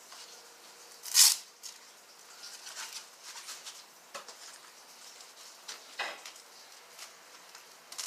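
A few short clatters and clicks of tools and hardware being handled, the loudest about a second in and fainter ones around four and six seconds in, as the dryer's top lid bolts are being taken out.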